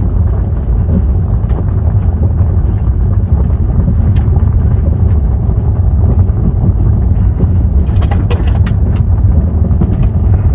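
Car driving slowly on a gravel track, heard from inside the cabin: a steady low rumble of tyres and engine, with a few sharp clicks about eight seconds in.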